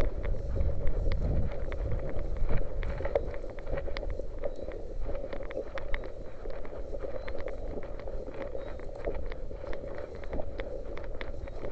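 Wind buffeting the microphone, strongest in the first few seconds, over a steady mid-pitched hiss, with many small scattered clicks.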